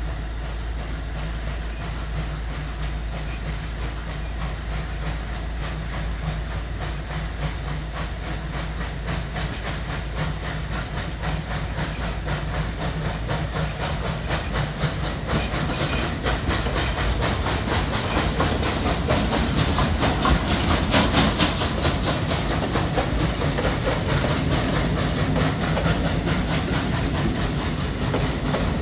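Ol49 steam locomotive pulling a passenger train away on departure: rhythmic exhaust beats and hissing steam, growing louder as it approaches and passes, with wheels clacking over rail joints.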